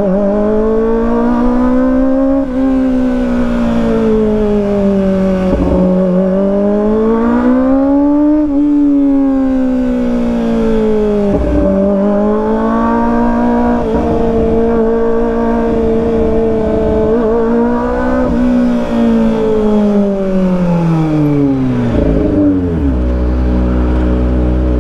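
Kawasaki ZX25R's 250 cc inline-four running through a loud aftermarket exhaust with an enlarged 60 mm stainless elbow. Its pitch rises and falls with throttle at low road speed, with several quick dips. About 22 seconds in it drops to a steady idle as the bike stops in traffic.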